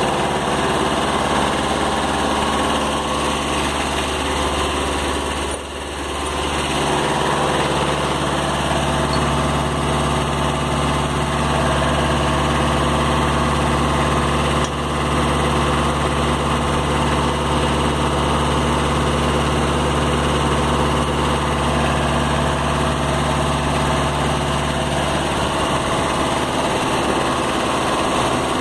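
Kubota B7000 compact tractor's diesel engine idling steadily, dipping briefly about six seconds in and again near the middle.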